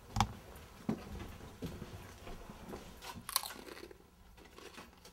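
A few scattered knocks and thumps, the loudest just after the start, over low rustling and shuffling.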